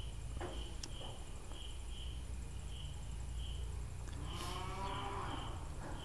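A 6-amp two-way light switch clicks once, about a second in, switching the lamp on. A faint high chirping repeats steadily about twice a second behind it, and a faint drawn-out call rises and falls near the end.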